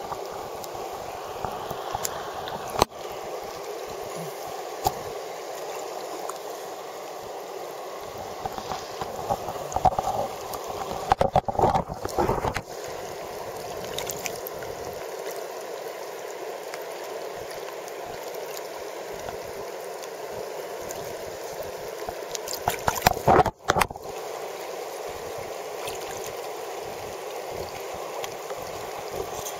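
Creek water flowing and gurgling steadily over rocks close to the microphone, broken twice by brief bursts of close splashing and knocks.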